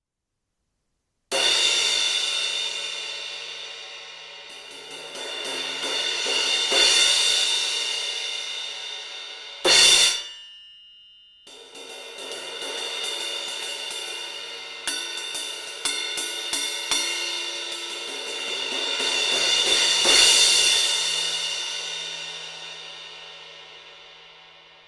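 A Synergy Zircon cymbal being played: struck and left ringing, its wash building up and dying away twice. About ten seconds in a loud hit is cut off suddenly, then the cymbal is struck again, with a few quick hits a few seconds later, and fades out near the end.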